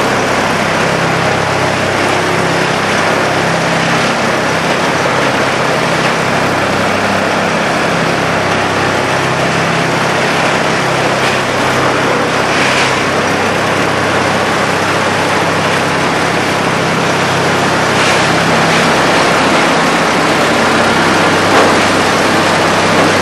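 Morbark 1200 tub grinder's engine running steadily under heavy machine noise.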